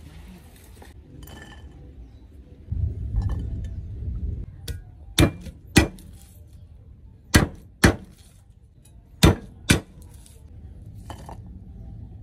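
Steel cleaver striking a thick wooden chopping block in three pairs of sharp knocks about two seconds apart. Before them comes a low rustling handling noise about three seconds in.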